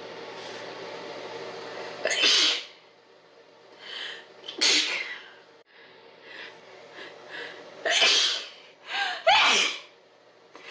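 A run of sneezes: four loud ones, about two, four and a half, eight and nine seconds in, with quieter short breaths between them.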